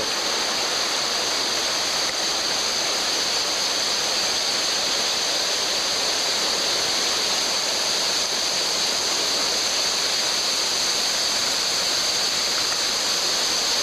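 Steady, unbroken rushing of a large river's current, with small waterfalls pouring off the cliffs into it.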